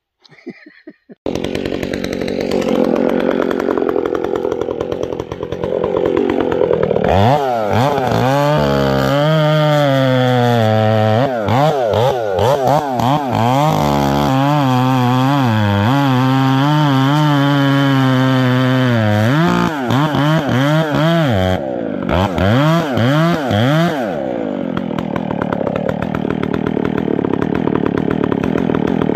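Two-stroke chainsaw with a square hand-filed chain cutting a face notch into a tree trunk, its engine pitch wavering up and down under load. It starts about a second in and drops out briefly about three quarters of the way through.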